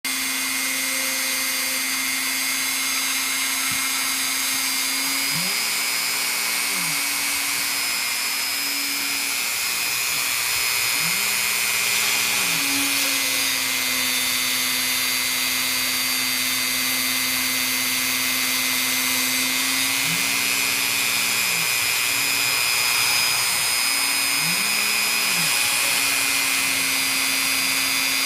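A small motor running steadily with a strong hiss and a constant hum.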